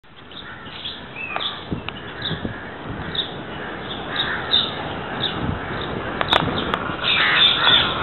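Parrots squawking: harsh, short calls repeated over and over, growing denser and louder near the end, with a couple of sharp clicks.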